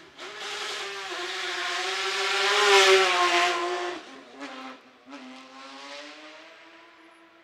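Subaru Impreza rally car's turbocharged flat-four engine accelerating hard out of a hairpin, its note rising and loudest about three seconds in. Just after four seconds the pitch drops at a gear change, then it climbs again as the car pulls away and fades.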